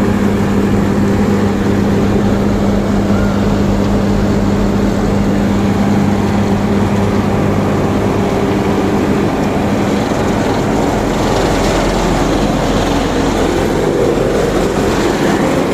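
Diesel engines of road-building machinery laying wet mix macadam, running steadily with a constant low hum. A harsher, noisier layer joins over the last few seconds.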